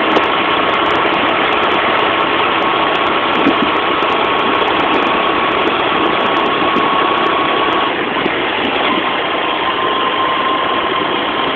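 Steady engine and wind-and-road noise of a vehicle travelling along a road, with a thin constant whine that breaks off about eight seconds in and returns a little lower.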